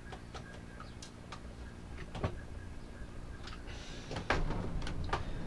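Plastic control box of a Grainfather being fitted and pressed shut by hand: scattered small clicks and knocks of plastic parts, with a sharper knock about two seconds in and another about four seconds in.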